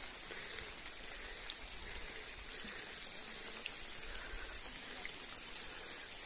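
Steady rain falling: an even hiss with scattered individual drops ticking.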